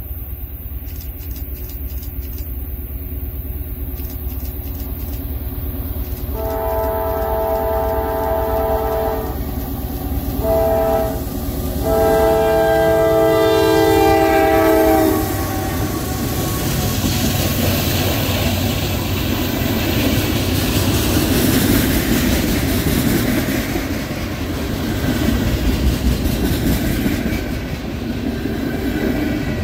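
CSX freight diesel locomotive sounding its multi-note air horn for a road crossing: a long blast, a short one, then a long one that drops in pitch as the engine passes. Then comes the steady noise of the locomotive and freight cars rolling by, wheels on rail.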